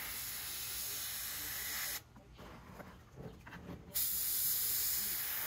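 Airbrush spraying paint: a steady hiss of compressed air that stops sharply about two seconds in as the trigger is let go, then starts again, a little louder, near four seconds.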